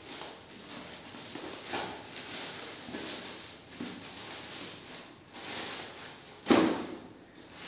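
Plastic courier mailer crinkling and rustling as it is torn open and a cardboard shoebox is pulled out, then one sharp thump near the end, the loudest sound, as the box is set down on the hard stone floor.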